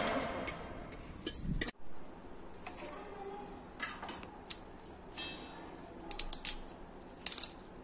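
Crisp fried sooji (rava) vadiyalu crackling and snapping as fingers handle and break them over a steel plate, with light clinks of the plate. The sounds are short sharp cracks, scattered, then several in quick succession near the end. The tail of background music fades out in the first second.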